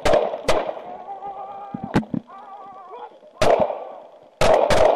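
Gunfire in a close-range shootout: separate sharp shots about half a second and three and a half seconds in, then a rapid string of shots fired in quick succession near the end.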